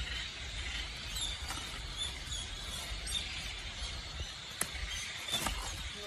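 Outdoor forest ambience: a steady low rumble under a high hiss, with short high chirps about once a second. A few sharp clicks come in the second half.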